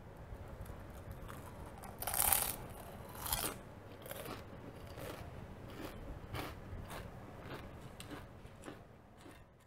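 Crunchy Doritos tortilla chips bitten and chewed close to the microphone. A loud crunch comes about two seconds in and another about a second later, then smaller chewing crunches about twice a second.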